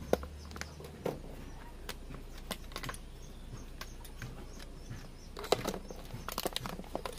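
Irregular light clicks and metal clinks as tools and parts are handled on the exposed rocker-arm valve train of an Isuzu 4BC2 diesel engine, with quick runs of clicks about five and a half seconds in and again near the end.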